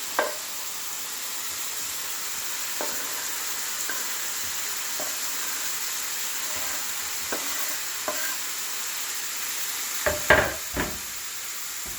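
Chicken and shrimp sizzling steadily in a hot oiled pan as they are stir-fried, with a utensil knocking and scraping against the pan now and then and a few louder knocks about ten seconds in.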